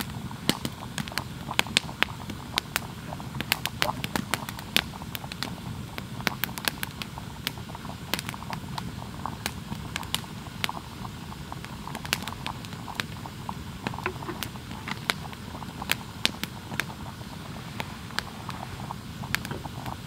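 Wood campfire crackling, with frequent irregular sharp pops over a low steady rush.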